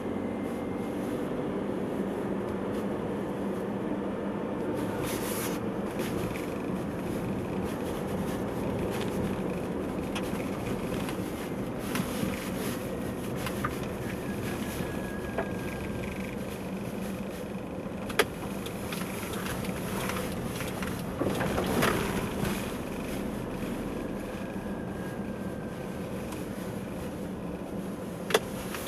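A car driving slowly, heard from inside the cabin: a steady hum of engine and tyre noise, with a few sharp clicks, one a little past halfway and one near the end.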